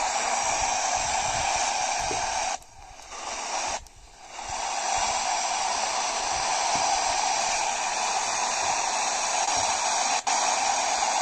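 Radio receiver hiss: steady static from an open, unoccupied channel. It drops out twice, about two and a half and four seconds in, and cuts out for an instant near the end.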